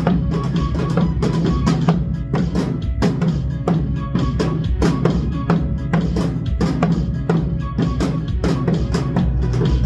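Janggu drums struck in a steady beat along with a recorded trot song with a heavy bass line.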